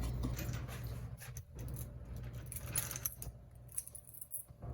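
Light metallic clinks and rattles of something being handled, scattered irregularly and more frequent near the end, over a steady low hum.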